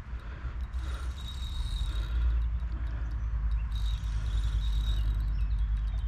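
Crickets chirping in stretches that start and stop, over a steady low rumble that grows louder about two seconds in.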